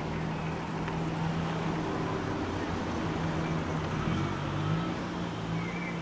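A Mk2 Ford Fiesta's four-cylinder engine runs at low revs as the car pulls slowly away, giving a low, steady note that shifts up in pitch briefly about four to five seconds in.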